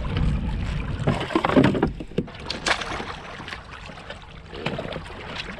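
Water sloshing against a fishing kayak's hull, with scattered knocks and rustles.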